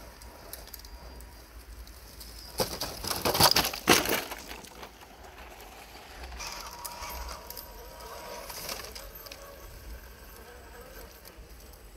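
Radio-controlled rock crawler driving over rocks and gravel: a burst of crunching and clattering lasting about two seconds, followed by quieter running with a faint steady whine.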